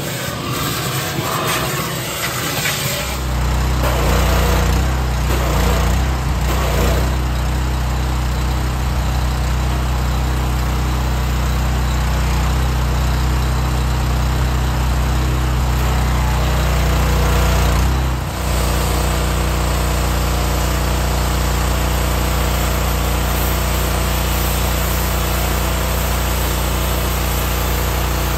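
Gas-engine pressure washer running steadily, its spray hissing against the truck. The engine drone comes in about three seconds in, after a stretch of hissing, and dips briefly about eighteen seconds in.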